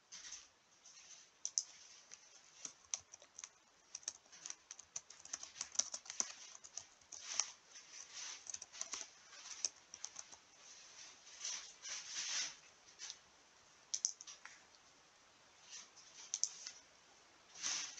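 Computer keyboard typing: an irregular run of keystrokes, with a short pause near the end.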